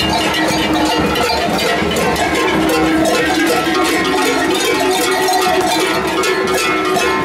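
Many large cowbells (cencerros) worn on the belts of masked carnival figures, clanging continuously and overlapping as the wearers walk and sway in procession.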